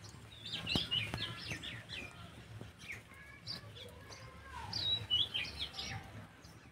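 Small birds chirping and twittering in quick, short calls, in flurries about a second in and again near five seconds, with a couple of soft clicks among the first flurry.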